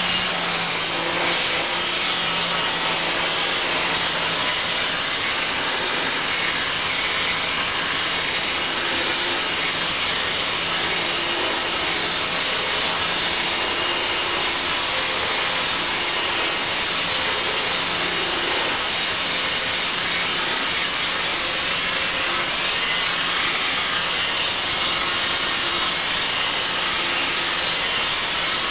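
Angle grinder driving a Rotopeen tungsten-carbide peening flap inside a vacuum-extraction shroud, running steadily against a rusty steel plate as the flap strips the rust to bare metal.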